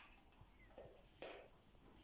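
Near silence, with two faint, brief rustles about a second in: a crested porcupine feeding in straw.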